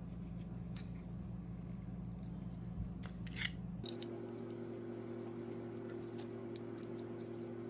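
Adjustable crescent wrench clinking and scraping against a steel seat bracket as it is bent by hand: light metallic clicks, with a louder scrape about three and a half seconds in. A steady low hum runs underneath and changes pitch about four seconds in.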